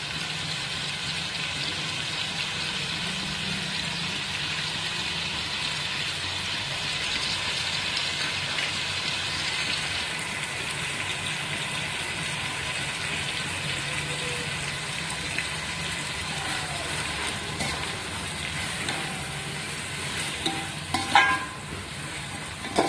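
Chopped onion, tomato and curry leaves frying in hot oil in a metal pot over a high gas flame, a steady sizzle. Near the end a perforated metal spatula starts stirring, with a few sharp scrapes against the pot.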